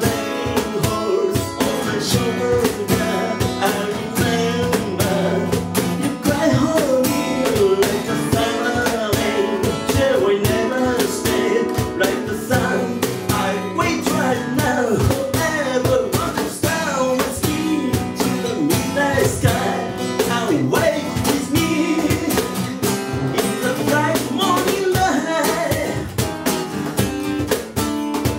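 A man singing a song to a strummed acoustic guitar, with a cajón beating out the rhythm.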